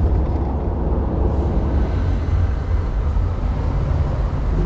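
A moving pickup truck heard from its open bed: a steady low rumble of road noise.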